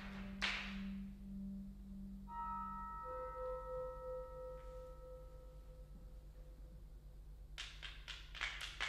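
Sparse contemporary concert music: a low held note fades away, with a single sharp struck sound about half a second in. A cluster of high steady tones and a pulsing middle note then sound and die away. Near the end comes a quickening run of sharp taps.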